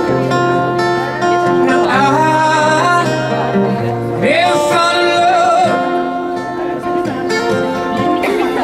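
Live acoustic music: a singing voice sliding between held notes over acoustic guitar accompaniment.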